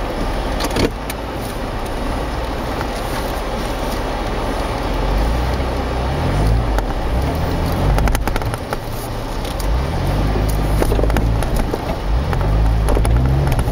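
Jeep Wrangler JK Unlimited driving slowly through snow. The engine revs up and down several times from about five seconds in, over steady tyre and snow noise and scattered clicks and knocks.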